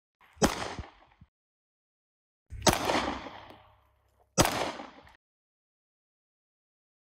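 Three pistol shots, roughly two seconds apart, each a sharp crack followed by a short echo that dies away.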